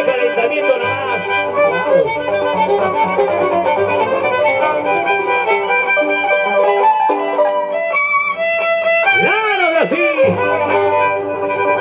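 Live Andean tipaki tipaki carnival music led by violins, playing a melody with sliding and wavering notes.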